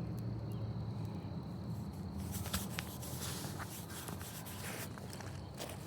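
Freshly lit wood fire in a firepit crackling, with a few sharp pops over a low steady rumble. A thin, steady, high insect trill runs in the background.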